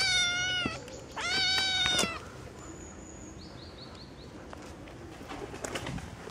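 A kitten meowing loudly twice: two high, drawn-out cries of under a second each, the second starting about a second in.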